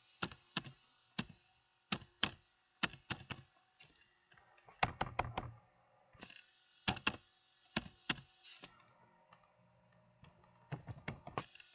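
Typing on a computer keyboard: irregular keystroke clicks in short flurries with brief pauses between them.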